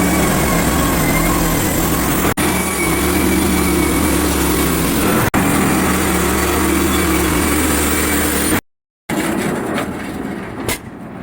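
Small gasoline engine of a portable bandsaw sawmill running steadily. About eight and a half seconds in, the sound cuts out for half a second and comes back quieter.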